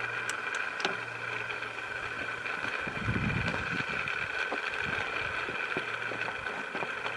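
Small DC electric motor running steadily off a battery bank, a constant high whine over a low hum.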